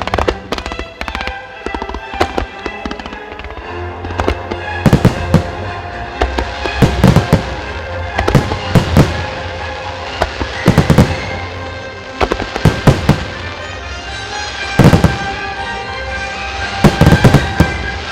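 Aerial firework shells bursting in a long run of sharp bangs, many in quick clusters of two or three every couple of seconds, over continuous music.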